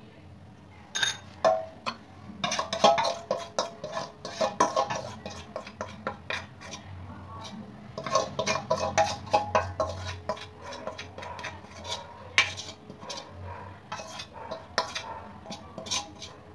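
A utensil scraping and clinking against the inside of a stainless-steel mixing bowl as cake batter is scraped out. The clinks and scrapes come in quick runs, with a lull around six to eight seconds in, and thin out towards the end.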